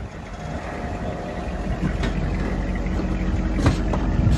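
Jeep engine running at a low crawl, a steady hum that grows gradually louder, with two sharp knocks, one about two seconds in and one near the end.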